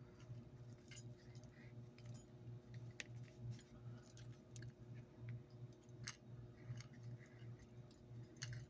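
Faint rustling and small clicks of paracord being pulled and tightened by hand while tying a cobra weave, over a low steady hum.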